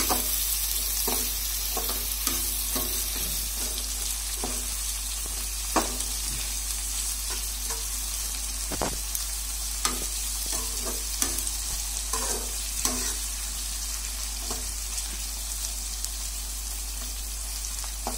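Sliced onions sizzling steadily in hot oil in a metal kadai, frying toward golden brown, with a metal slotted ladle scraping and clinking against the pan at irregular moments as they are stirred.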